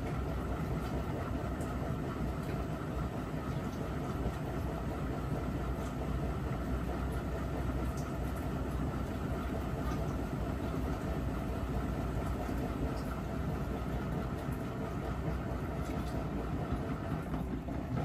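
Miele W5877 front-loading washing machine running steadily, a low rumble from the drum with a steady motor whine over it.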